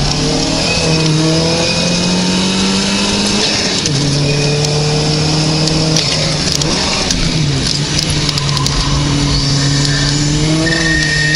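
Porsche 944 Turbo's turbocharged four-cylinder engine pulling hard, its pitch rising until it drops at an upshift about four seconds in, then holding steady. The note changes again around seven seconds in as the car slows for a bend, and it pulls on again near the end. Steady road and wind rush runs underneath.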